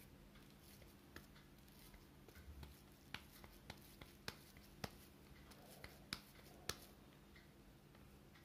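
Soft, sticky clicks and pats from hands pressing a ball of vegetable tikki dough into a patty: about six short, sharp clicks in the middle, roughly half a second apart, over a faint low hum.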